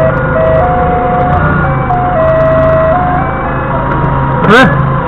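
Doosan 4.5-ton forklift's engine running steadily under a simple electronic melody of single held tones stepping from pitch to pitch. A brief rising squeal comes near the end.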